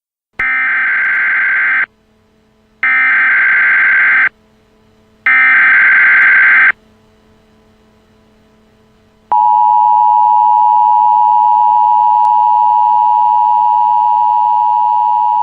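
Emergency Alert System header: three bursts of SAME digital data tones, each about a second and a half long with a second's gap between, followed about nine seconds in by the long steady EAS attention tone.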